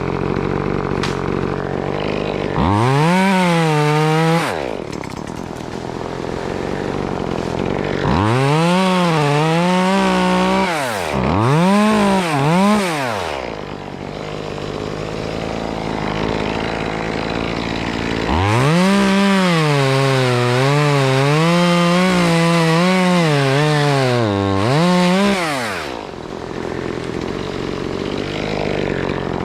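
Two-stroke chainsaw cutting into a queen palm. It rises to a high-pitched full-throttle whine three times, the pitch wavering and dipping under load during the longer runs, and drops back to a lower idle in between.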